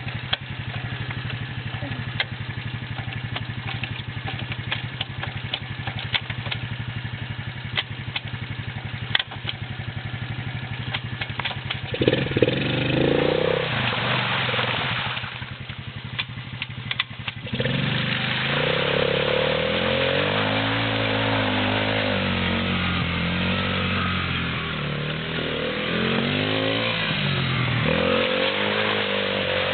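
Quad ATV engine idling with scattered clicks, then revving up about twelve seconds in, easing off briefly, and running at higher revs with a wavering pitch from about eighteen seconds on.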